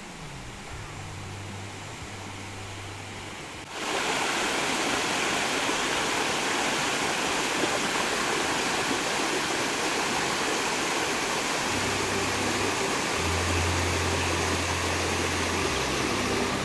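River water rushing over rocks in rapids: an even rushing noise that cuts in suddenly about four seconds in and stays loud.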